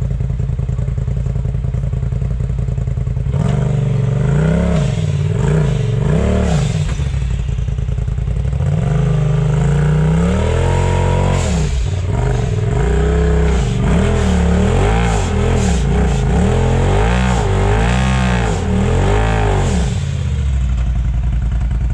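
A side-by-side UTV's engine running steadily, then revved up and down over and over, roughly once a second, with a few longer held pulls, as the machine works for traction on a steep rocky climb. It then settles back to a steady run near the end.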